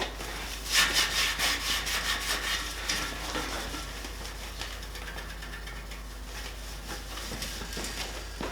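A cloth rubbing back and forth over bare aluminium tubing, wiping the roof rack down with degreaser. The quick strokes are loudest in the first few seconds and fainter after.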